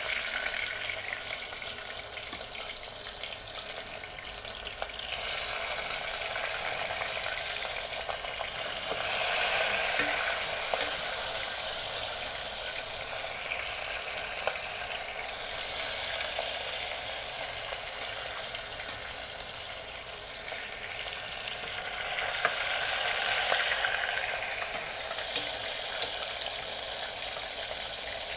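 Flour-coated chicken wings frying in olive oil in a pan over medium heat: a steady sizzle with many small pops, swelling louder twice.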